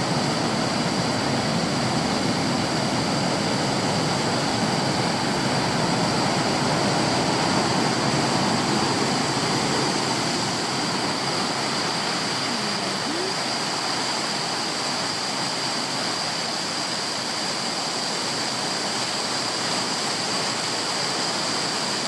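Water spilling over a concrete river weir: a steady rushing.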